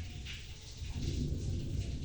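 Heavy rain falling, a steady hiss with a deep rumble underneath.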